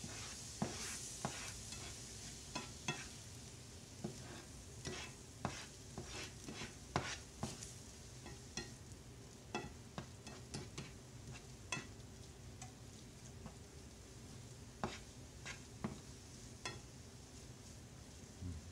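Black slotted spoon stirring and scraping a thick fish-cake mixture in a nonstick skillet, with irregular taps of the spoon against the pan over a faint sizzle.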